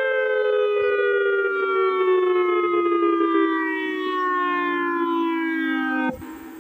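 Federal Signal EOWS-1212 electronic outdoor warning siren sounding the attack signal. Its loud tone slides slowly down in pitch, then cuts off abruptly about six seconds in.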